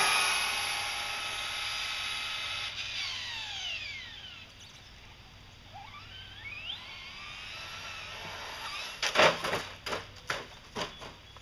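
Traxxas Slash 4x4 RC truck's brushless Velineon electric motor and drivetrain whining at high speed as it passes close, the pitch sliding down as it speeds away, then fainter rising whines as it accelerates again in the distance. About nine seconds in, a burst of sharp clattering knocks as the truck tumbles at the edge of the path.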